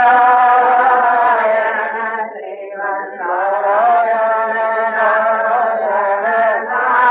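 Devotional Hindu chanting by voice, in long held, slowly wavering notes, with a short dip as the voice drops away about two and a half seconds in. It sounds thin, with no bass.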